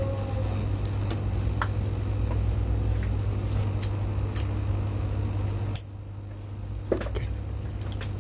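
Steady electrical hum from an air-conditioner control board and its test load running under power, with scattered light clicks. About six seconds in a sharp click, after which the hum drops in level, and another click a second later.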